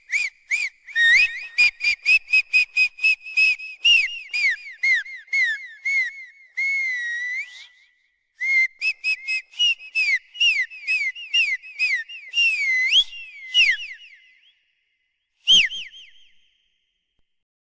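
Whistling in a rapid series of short, high chirps, some sliding up and some sliding down in pitch, with one longer held note partway through. After a brief pause the chirps carry on, then end with a last short burst near the end.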